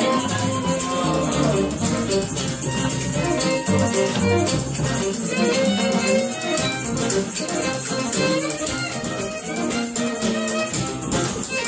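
Live acoustic band playing: upright bass, acoustic guitar and a shaker rattling without a break.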